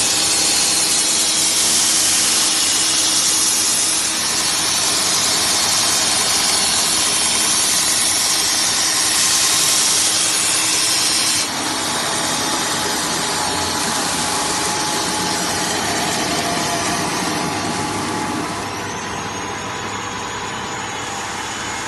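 Automatic abrasive belt grinding machine running, its sanding belt grinding the welded seam of a stainless steel kitchen sink: a loud, steady, hissing grind. It drops in level about halfway through and again near the end.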